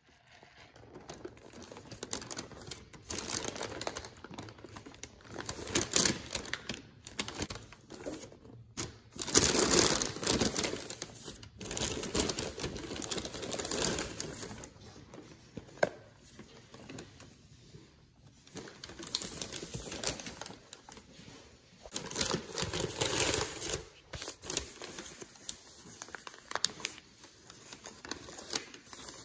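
Paper takeout bag and paper food wrappers rustling and crinkling as hands open the bag and pull items out, in irregular bursts with brief pauses between.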